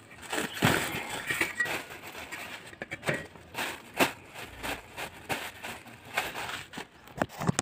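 Rustling, crinkling and small knocks as a lump of khoya is handled and unwrapped from its wrapping, in irregular bursts with many short clicks.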